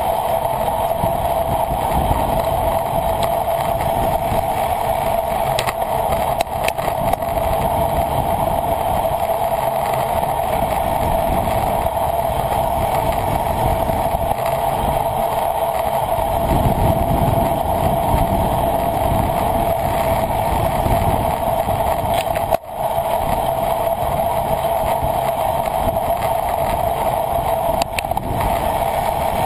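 Steady rush of wind and road noise on a camera riding on a bicycle during a race, with an uneven low rumble of wind buffeting that swells about two-thirds of the way through. There is a brief drop-out a little later.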